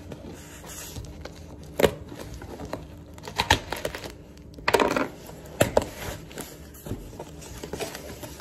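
Knife cutting into a taped, paper-wrapped shipping package, then the wrapping and tape being torn and crinkled by hand. Sharp snaps come near 2 and 3.5 seconds in, and a longer rip about 5 seconds in.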